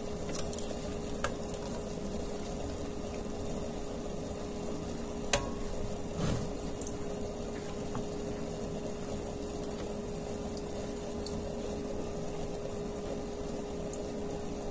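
Hot chicken and potatoes sizzling in an air fryer basket while tongs pull out a grease-soaked silicone liner, with a few light clicks and one sharp click about five seconds in. A steady hum runs underneath.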